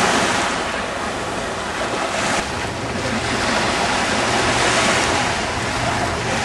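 Small sea waves washing on the shore, a steady rush of surf, with wind buffeting the microphone.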